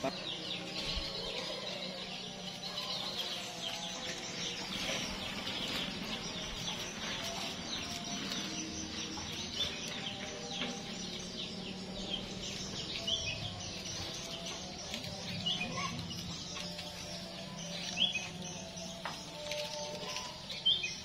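Farmyard ambience of many small birds chirping continuously, with a few sharper, louder calls in the second half, over a steady low hum.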